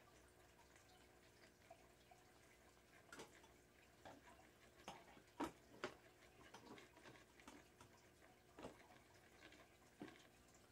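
Near silence with a scattering of faint clicks and taps from hands handling a Monty animatronic prop during assembly; the loudest come a little past halfway.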